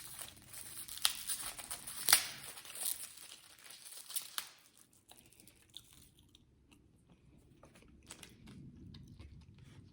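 Plastic packaging being handled: crinkling and tearing with a few sharp plastic clicks over the first four seconds or so, then fainter rustling and ticks. This is typical of a plastic fork being worked out of its wrapper and a coleslaw cup being opened.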